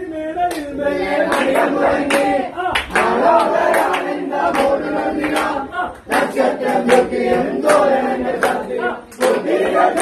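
A group of men singing a Christmas carol together in loud phrases, with drum strikes from stick-played drums cutting through the singing.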